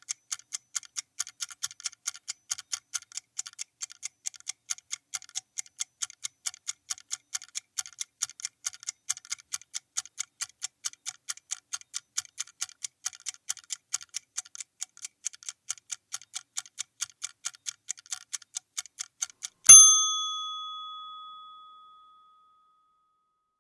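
Clock ticking sound effect, fast and even at several ticks a second. Near the end the ticking stops and a single loud bell strike rings out, fading over about two seconds. It marks the end of the one-minute countdown.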